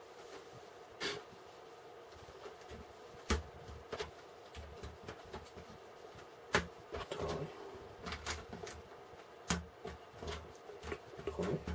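Plastic building bricks clicking and rattling as they are handled and pressed together: irregular sharp clicks and small knocks, several seconds apart.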